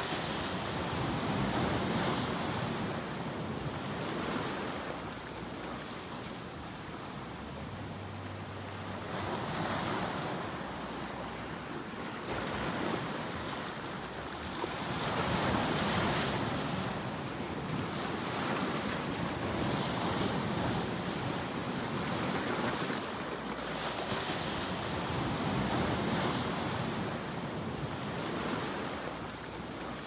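Ocean surf breaking on a sandy beach: a continuous rush of breaking waves and foam that swells and eases every few seconds.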